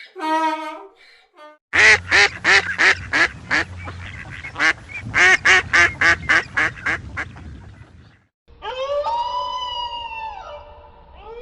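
Duck quacking in two quick runs of loud, short quacks, about three or four a second. After a short gap it gives way to a dingo howling, long drawn-out calls that rise and then hold.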